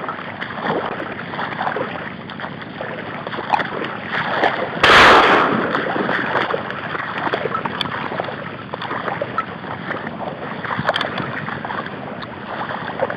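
Steady sloshing and splashing of footsteps wading through shallow, grassy marsh water. About five seconds in there is one sudden loud blast that fades over about half a second.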